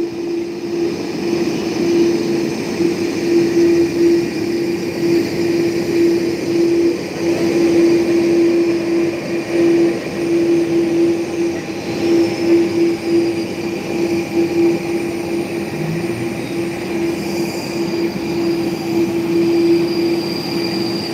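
Jet airliner engines running at idle power as the aircraft taxi on the apron: a steady, loud whine over a rushing noise.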